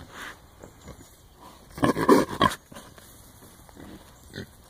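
Trapped wild hogs calling, with a loud, harsh burst of squealing about two seconds in and a few shorter, quieter calls around it.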